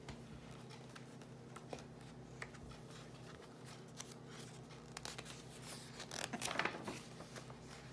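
A picture-book page being turned by hand: faint paper handling with a few small ticks, then a louder rustle of the page about six seconds in.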